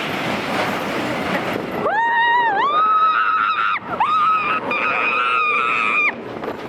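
Roller coaster riders screaming: two long, high, held screams, the first starting about two seconds in, over the rushing wind and rumble of the moving coaster.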